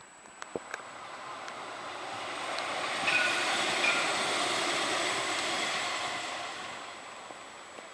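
CAF Urbos 3 tram passing by on its rails: a rushing sound of wheels on track that swells, peaks about halfway through and fades away, with a couple of brief high squeals at its loudest.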